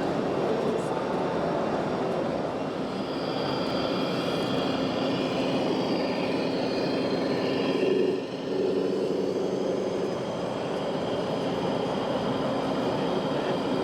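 1/14-scale RC construction machines and trucks running, with whining electric motors and gears over a steady mechanical din. The level drops briefly a little past halfway.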